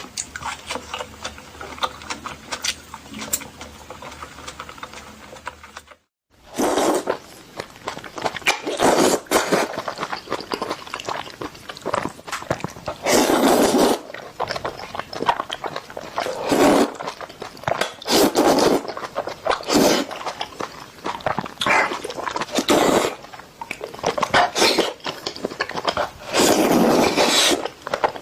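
Close-miked eating of Indomie instant noodles: quiet chewing with small wet mouth clicks, then, after a brief cut, loud noodle slurps repeating every second or two.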